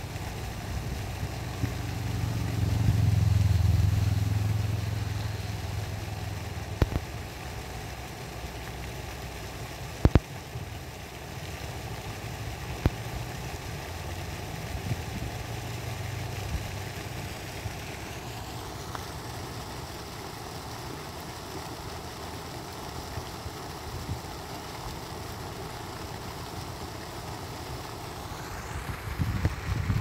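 A motor vehicle's engine rumble swells and fades a few seconds in, and returns faintly later, over a steady outdoor background hiss. There are a few sharp clicks.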